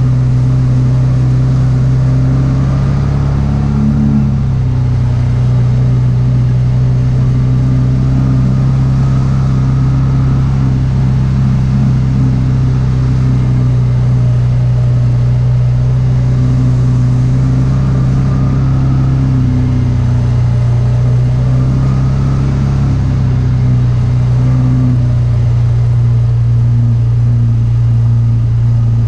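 Kawasaki Teryx 4 side-by-side's engine running steadily at low speed, heard from inside the open cab as a constant drone.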